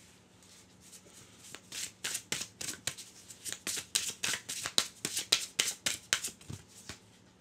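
Oracle of the Roses cards being shuffled by hand: a rapid run of crisp card snaps, about four or five a second, starting about a second and a half in and stopping just before the end.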